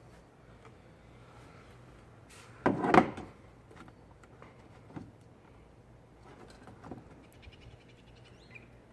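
Hands working a rubber grommet off a plastic car airbox: scattered knocks and scrapes of the plastic housing, with one louder clatter about three seconds in.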